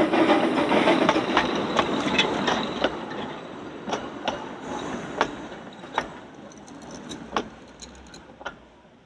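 Narrow-gauge steam train running away, its rumble fading steadily while the wheels click over rail joints, the clicks coming further and further apart.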